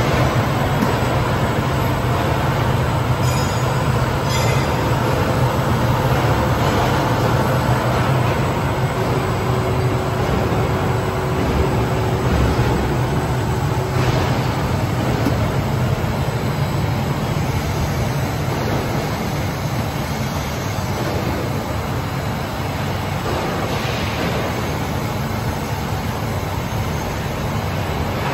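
ABA LDPE blown-film extrusion line running: a steady, loud mechanical noise with a strong low hum from its extruder drives and air-ring blower.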